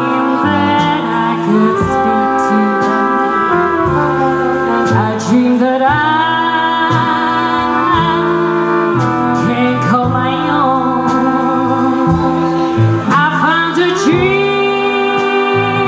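Live swing jazz band playing, with clarinet, trumpet, trombone, double bass and banjolele, and a woman singing long held notes over them that slide up into place about five seconds in and again near the end.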